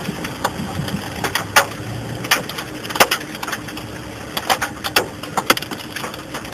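Large hailstones striking a vehicle, irregular sharp cracks a few times a second over a steady hiss of falling hail.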